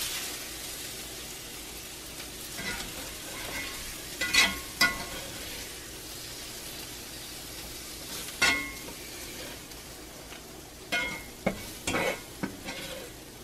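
Food sizzling softly in a cast iron skillet with the heat off, while a spatula scrapes the pan and clinks against a plate several times as the fried potatoes, chicken and bacon are scooped out.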